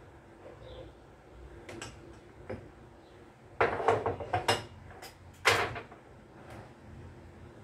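Kitchen clatter: a few faint clicks, then a quick run of loud knocks and clanks about halfway through and one more sharp knock a second later, as of doors and cookware being handled.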